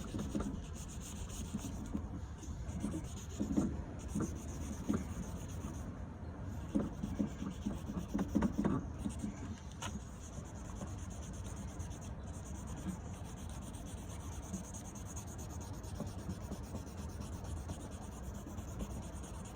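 Crayon rubbed back and forth across paper to colour in a background. Separate scratchy strokes are heard through roughly the first half, then it settles into fainter, steady rubbing.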